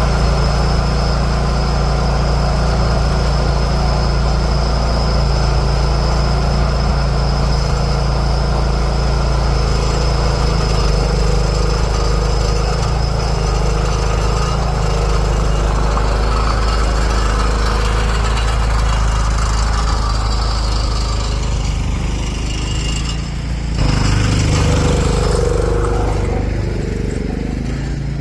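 John Deere 212 lawn tractor engine running steadily under load, its note changing abruptly about 24 seconds in. The owner puts its struggle down to a frozen choke: under load it can't pull enough fuel and starts to bog down.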